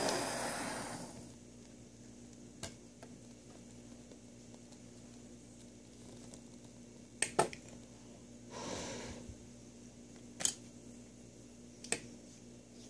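Butane torch lighter flame hissing against a rolled mesh wick, heating it, and dying away about a second in. Then a few small clicks and taps from handling the wick and tools, with a short soft rush a little past the middle.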